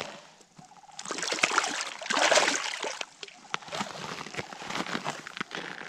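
Water splashing and sloshing in an ice-fishing live well as a freshly caught tiger trout is put in and moves about, loudest a little after two seconds in.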